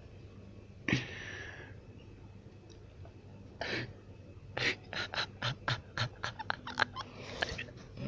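A person's breathy noises: a sharp snort about a second in, another near four seconds, then a quick run of about ten short puffs of breath and a last breathy rush near the end.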